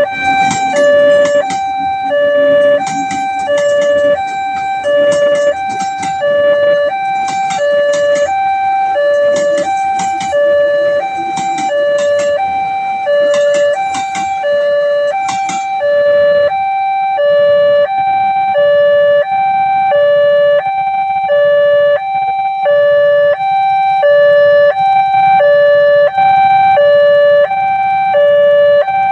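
Railway level-crossing warning alarm sounding a loud two-tone siren that alternates evenly between a higher and a lower tone. Through the first half, irregular sharp clattering runs underneath it and stops about sixteen seconds in.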